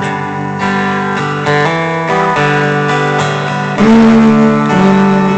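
Guitar strumming chords between sung lines of a song, the chords changing every second or so, with a louder chord struck about four seconds in.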